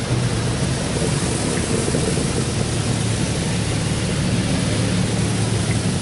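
High-pressure water spray from a Belanger Kondor KL1 touchless car wash's wash arm pelting the car's glass and body, heard from inside the cabin as a steady rushing hiss with a low rumble.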